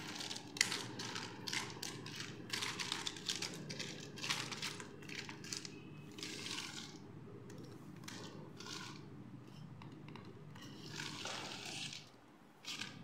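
Small plastic doll accessories (combs, brushes, hand mirrors, hair clips) clattering and clicking against each other and the tabletop as a hand spreads them out. The clatters thin out midway, then a longer rustle of sliding plastic comes near the end as the pieces are gathered away.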